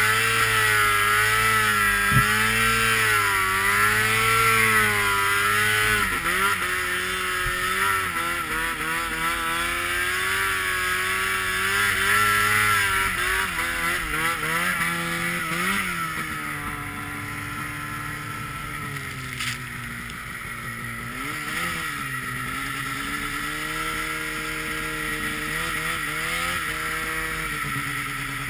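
Mountain snowmobile's engine running under load while side-hilling through deep snow. Its pitch wavers up and down with the throttle, then settles lower about six seconds in, with short revs about halfway through and again later, gradually getting quieter.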